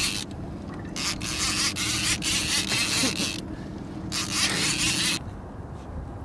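Large fishing reel on a catfish rod running in bursts of about a second, the first about a second in and the second near four seconds, while a hooked catfish is played. A steady low hum runs underneath and stops at the end of the second burst.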